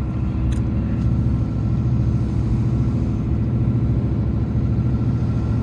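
Iveco Stralis truck's diesel engine and road noise heard from inside the cab while driving at a steady speed: an even, low drone.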